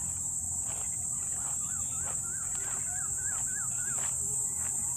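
Crickets trilling steadily at a high pitch. About a second and a half in, a bird gives a quick run of about eight rising-and-falling notes lasting about two seconds.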